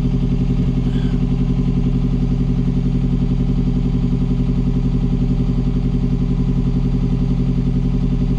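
Hire cruiser's inboard diesel engine running steadily under way, a low even throb with a regular pulse.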